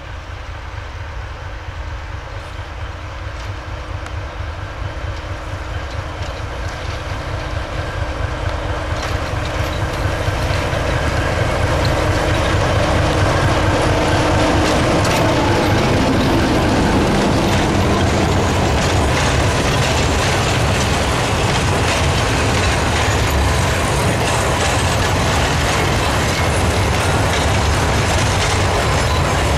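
T458 diesel locomotive approaching with its engine running, growing steadily louder for about twelve seconds as it nears and passes. After it, a long train of cement hopper wagons rolls by with a steady rumble and wheel clatter on the track.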